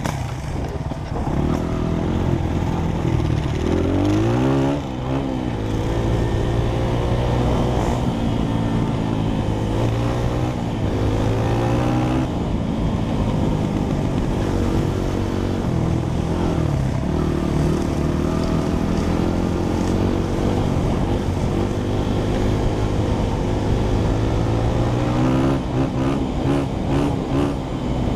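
A Honda CRF trail bike's single-cylinder four-stroke engine, heard from on the bike while riding. It revs up through the gears and back off, and its pitch drops sharply at each gear change.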